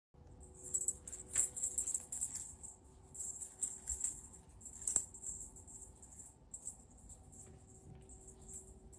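A small jingling toy shaken in irregular bursts, bright metallic rattling that comes and goes, loudest in the first half.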